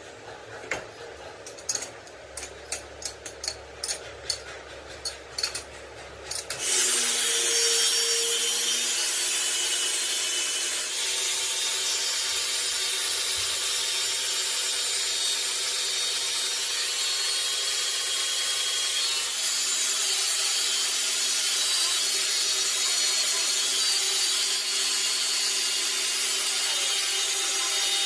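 A dozen or so sharp taps or knocks, then, about seven seconds in, a power tool starts and runs steadily on metal with a loud, hissing, grinding sound.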